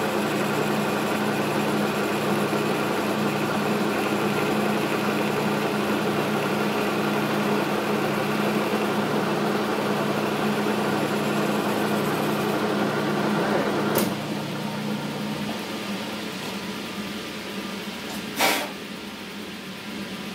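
Logan metal lathe running with a steady motor hum and an even pulsing throb from the turning chuck. About two-thirds of the way in it is switched off with a click and winds down, followed by a single short knock near the end.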